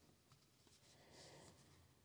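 Near silence, with a faint rustle of cardboard trading cards being slid and fanned in the hand, a little stronger about a second in.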